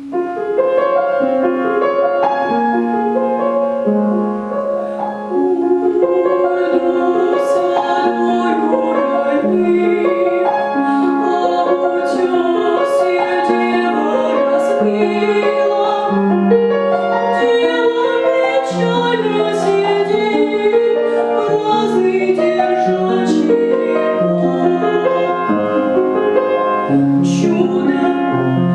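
Piano and a female classical voice performing a Russian art-song romance. The piano starts suddenly after a pause and plays a flowing accompaniment throughout.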